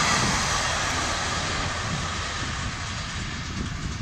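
Diesel-hauled passenger train moving away, the locomotive's engine and the running noise of the coaches fading steadily.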